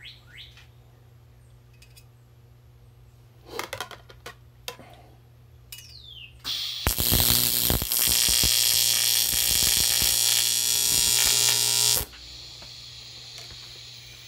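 Welding arc on aluminum, a loud steady hiss with a buzz, starting a little past halfway and cutting off suddenly after about five seconds, over a low steady hum; a few clicks come about four seconds in. The weld burns a big hole through the aluminum.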